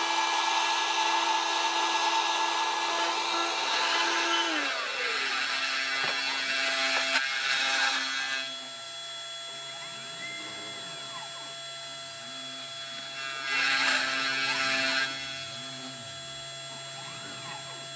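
A vacuum cleaner runs at the start and winds down, its pitch sliding away, about four and a half seconds in. Through the rest, the Eleksmill desktop CNC mill's spindle hums steadily while its stepper motors whine up and down in arcs as the bit moves. There are louder stretches of the bit cutting the particle board up to about halfway and again at about three-quarters.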